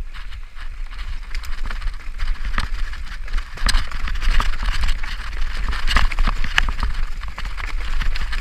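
Mountain bike descending fast over a rocky, leaf-covered trail: tyres crunching over loose stones, with many sharp knocks and rattles from the bike as it hits rocks, busier in the second half. A steady low rumble of wind on the rider's camera microphone runs beneath.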